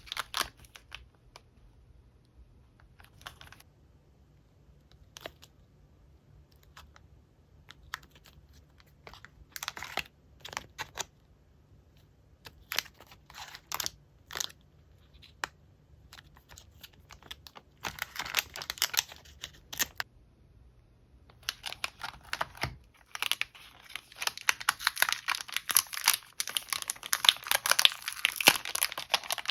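Hands handling packaged paper goods: scattered light taps and rustles, then steady crinkling of plastic packaging from about two-thirds in.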